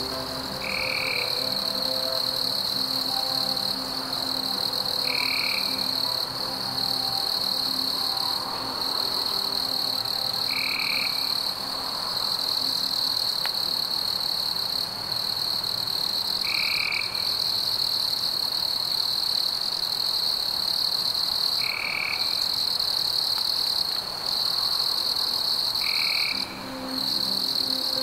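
Rainforest frog and insect chorus: a steady high trill, with a short call repeated six times, about every five seconds. Faint music tones underneath.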